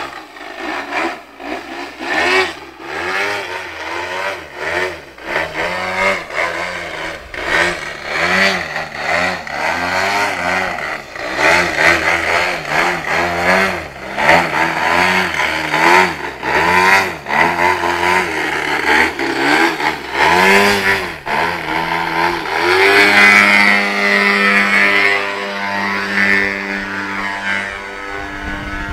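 Engine of an Edge 540 3D aerobatic RC model airplane, its pitch rising and falling over and over as the throttle is worked through hovers and aerobatic manoeuvres. For the last several seconds the engine holds a steady high pitch.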